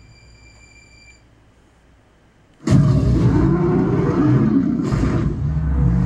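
Movie trailer soundtrack from a JBL SB400 soundbar, heard in the room: a quiet stretch with a faint high tone that stops about a second in, then a sudden loud crash of a giant sea creature bursting out of the water with a heavy splash and deep rumble. A second surge of splash comes about two seconds later.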